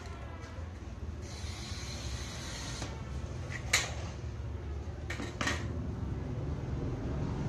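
A glass cutter scoring a sheet of glass along an aluminium straightedge: a gritty hiss of under two seconds. Then comes one sharp knock as the aluminium straightedge is lifted, and two clacks as it is laid down on the table, over a steady low hum.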